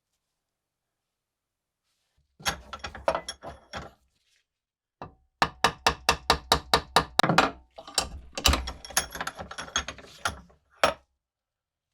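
A quick series of sharp mechanical clicks and taps in several runs after a couple of seconds of quiet, the middle run a steady five or so a second.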